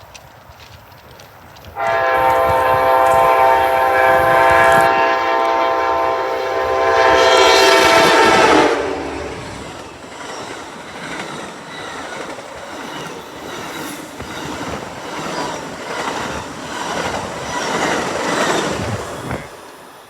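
An Amtrak passenger train's multi-chime air horn sounds one long chord for about seven seconds, starting about two seconds in. As the horn stops, the train rolls past with wheels clacking over the rail joints, and the clacking fades away near the end.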